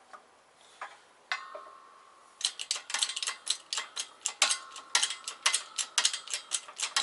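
Hydraulic bottle jack on a 20-ton shop press being pumped by its handle, pressing a bushing into a control arm. There are a couple of metal clanks, one ringing briefly, and then from about two and a half seconds in, a rapid run of sharp clicks, about four a second, from the pump strokes.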